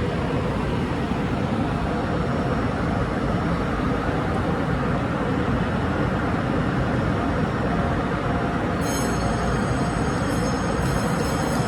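Electric train at a station platform, a steady rumbling running noise. About nine seconds in, a high-pitched set of steady tones joins it.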